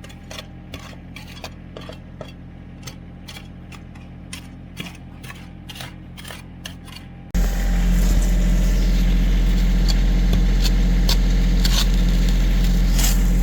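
Digger's diesel engine running, with irregular clinks and knocks of metal on stone. About seven seconds in, the engine abruptly becomes much louder and closer.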